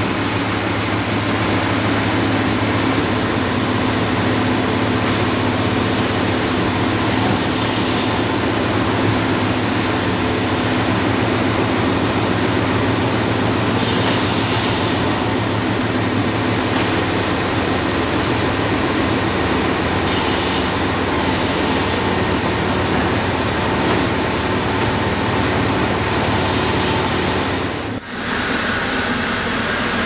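Band sawmill running steadily, a continuous loud machine drone, with a short drop in level near the end.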